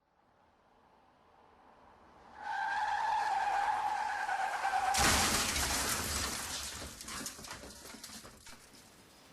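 Car crash sound effect: tyres screech for about two and a half seconds, then a sudden loud crash with shattering and falling debris that fades out over a few seconds.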